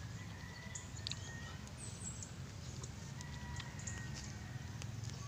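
Faint outdoor background with birds calling, including short high chirps about two seconds in, over a steady low rumble, with scattered soft clicks from chewing.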